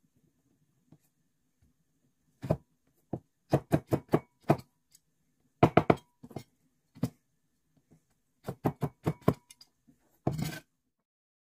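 Irregular sharp knocks and clinks of kitchen utensils, some leaving a brief ring, with a short rattling scrape near the end.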